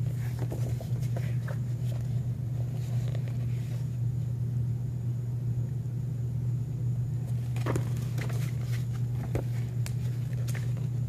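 A steady low hum runs underneath, with the rustling and handling of a paperback picture book's pages as they are turned and the book is held up. The rustling comes now and then and is busiest in the last few seconds.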